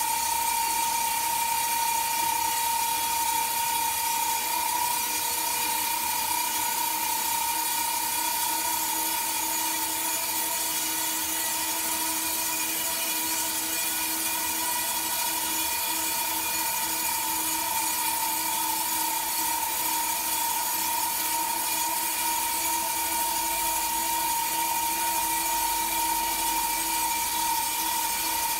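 Industrial horizontal band sawmill running, a steady high whine with a hiss above it that does not change.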